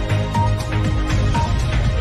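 Electronic background music with a steady, heavy beat and a short high note repeating about once a second.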